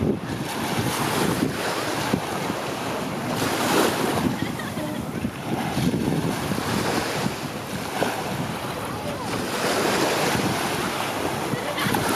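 Waves washing ashore, with wind buffeting the microphone. The wash swells and eases every few seconds.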